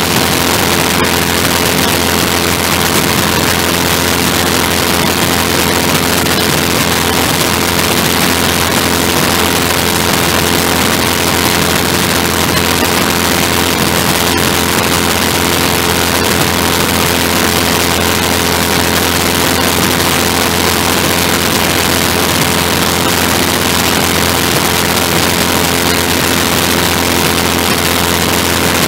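The engine of a small ground-effect craft running steadily, a constant drone with several fixed tones under a rushing noise.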